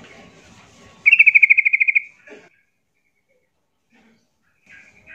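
Yellow-vented bulbul (trucuk) calling: a fast chattering trill of about fourteen quick notes in one second, starting about a second in. A short note follows, and a second call begins right at the end.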